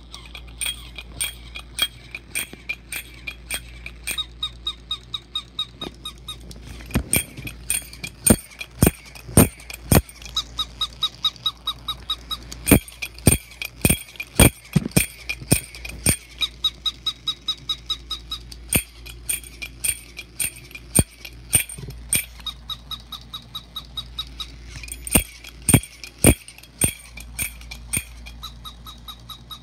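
Battery-operated cymbal monkey toy clapping steadily at about two and a half claps a second. In stretches a repeating squeaky electronic chatter plays over the claps.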